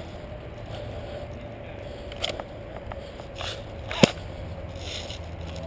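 Footsteps along a dirt woodland trail, with a few soft clicks and one sharp snap about four seconds in, over a steady low hum.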